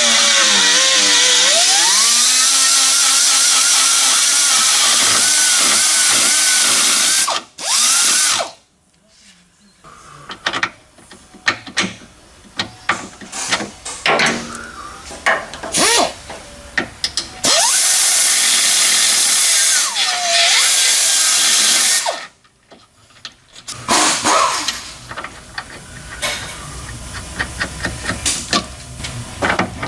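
A handheld power grinder grinding metal out of a motor mount to enlarge the hole so a cam bolt will go through. It makes two long runs of a high whine with a grinding hiss, the first about seven seconds and the second about four and a half, the pitch sagging and recovering under load. Clanks and taps of metal come between the runs.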